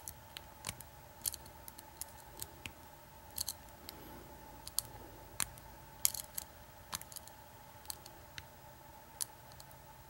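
Light, irregular metallic clicks of a lock pick working the pins of an American 2500 puck lock's six-pin cylinder under a tension wrench, about twenty small ticks at an uneven pace, over a faint steady hum.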